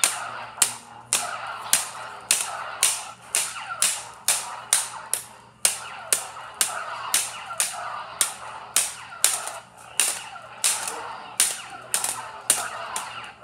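Light-up toy lightsabers clashing over and over, about two sharp plastic hits a second, each trailing off briefly, with a steady buzz underneath.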